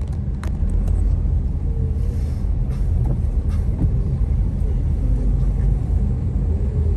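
Steady low rumble of a car driving, heard from inside the cabin, its tyres running on a wet, flooded road.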